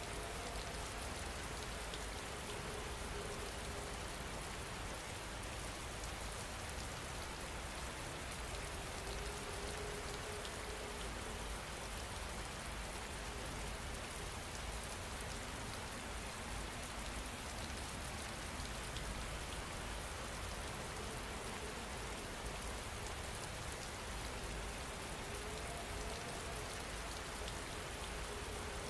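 Steady rain falling, an even hiss with no let-up, with faint scattered crackles from a log fire in a fireplace.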